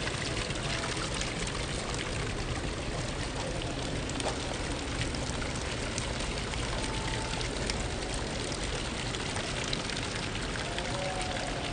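Steady splashing and trickling of running water from outdoor garden fountains.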